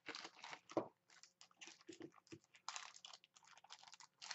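Soft, irregular rustling and crinkling of packaging being handled, in a quick run of short scrapes and crackles.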